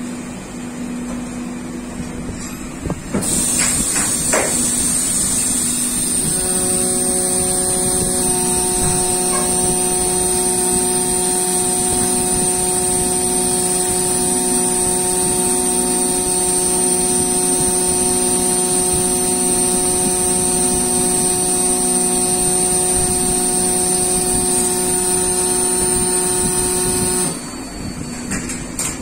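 A PCB solder-mask UV exposure unit running an exposure cycle. About three seconds in a loud, steady machine noise with a high hiss comes on, with a few knocks, and a steady whine of several tones joins a few seconds later. All of it cuts off suddenly near the end as the cycle stops.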